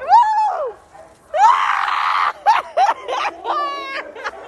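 High-pitched screaming and yelping during a dog attack: a sharp cry at the start, a long loud scream about a second and a half in, then a few short yelps and a held, steady cry near the end.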